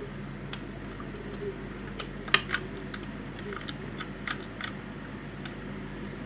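Hard plastic mixer parts clicking and tapping as they are handled, with a few sharp clicks about two seconds in, over a steady low hum.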